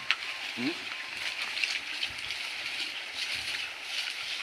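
Shallow stream running over stones: a steady rushing hiss with scattered small clicks.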